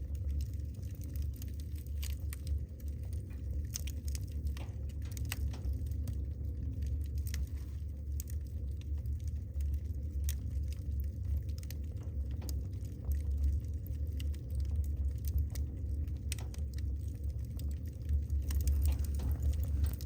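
Wood fire burning in a fireplace, crackling with irregular sharp pops and snaps over a steady low rumble, a little louder near the end.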